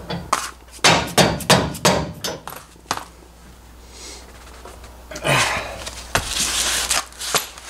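Hammer striking a steel tie-down receiver to drive it into a truck's hitch: a rapid string of sharp metal knocks over the first three seconds. Then comes rough metal-on-metal scraping, the receiver binding and grinding where it shouldn't.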